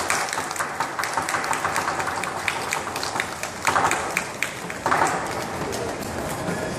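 Scattered clapping and crowd chatter from an audience, with a couple of louder swells of applause about four and five seconds in.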